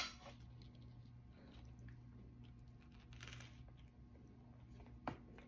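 Near silence with faint chewing and biting into a soft buttered pandesal bread roll, over a steady low room hum. A sharp click comes at the very start and another near the end.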